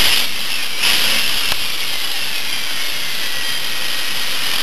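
Mitsubishi Cordia's freshly rebuilt turbocharged engine, heard from inside the cabin, blipped twice near the start and then settling, with a whistle sliding down in pitch as the revs fall.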